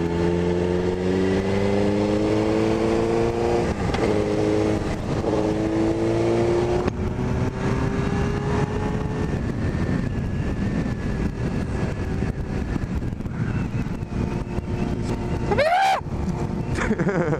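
Suzuki GSX-R600 K1's inline-four engine pulling up through the revs, with two short dips for gear changes in the first seven seconds. It then settles into a steady rush of wind and road noise at cruising speed, with a brief rising sound near the end.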